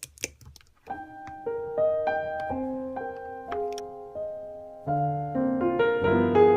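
Piano playing a slow introduction: a few clicks, then single held notes stepping through a melody from about a second in, with bass notes joining near the five-second mark and the playing growing fuller.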